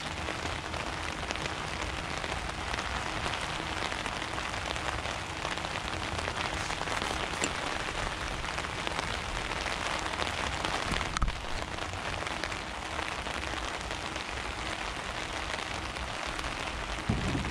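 Steady rain pattering on a surface, with a single sharp knock about eleven seconds in.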